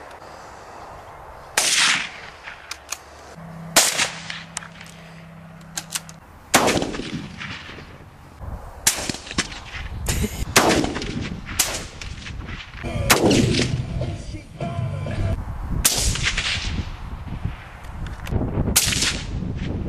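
A series of rifle shots, each a sharp crack with a short echo trailing after it. They come spaced irregularly, a few in the first seconds and then in quicker succession from about six seconds in.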